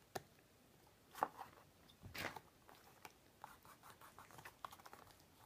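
Faint handling sounds of a paperboard box being pressed and held while glue sets: a few light taps and rustles in the first two seconds, then a run of small clicks.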